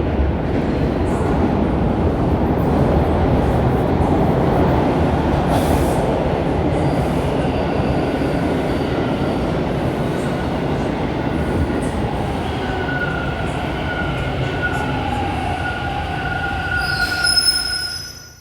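TTC subway train running, heard from inside the car: a steady loud rumble of wheels on track. About two-thirds of the way through, high squealing tones come in over the rumble and grow, and the sound drops away sharply at the very end.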